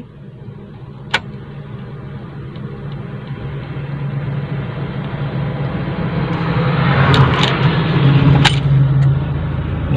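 A diesel car's engine being started, heard from inside the cabin. There is a click about a second in, then the sound builds over several seconds, with a stretch of starting noise and clicks near the end before the engine settles to a steady idle.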